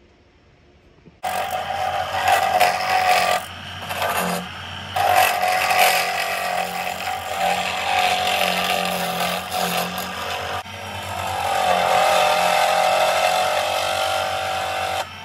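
A small lathe switched on about a second in, spinning an HDPE blank, running with a steady motor hum under a loud, uneven whirr that dips a few times, then switched off just before the end.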